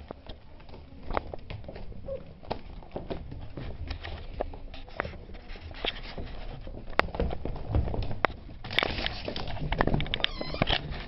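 Beagle puppies moving about: scattered clicks and scuffling noises, busier near the end, with a brief high squeal just before the end.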